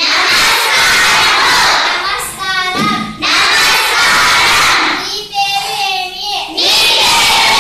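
A class of children reciting loudly in unison. Their three choral responses are each broken by a single child's short spoken phrase, in a call-and-response lesson drill.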